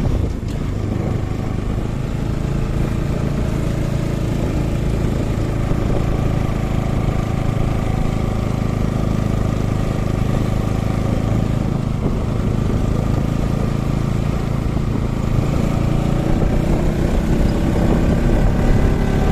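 Motorcycle engine running steadily while riding, with wind and road rumble on the microphone; the engine note climbs over the last few seconds.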